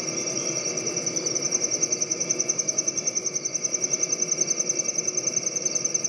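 Field recording of a fall night insect chorus. Ground crickets pulse fast and evenly, the loudest and highest layer, over a steady high trill of distant tree crickets, with a fall field cricket and a spring peeper calling in the mix.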